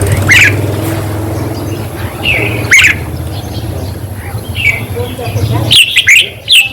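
Red-whiskered bulbul calling in short, sweeping chirped phrases, a few times with a quick cluster near the end, over a steady low hum.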